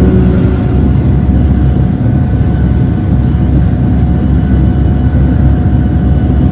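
Tokaido Shinkansen Nozomi train running at speed, heard from the deck between cars: a loud, steady, mostly low rumble of running noise with a faint steady tone above it.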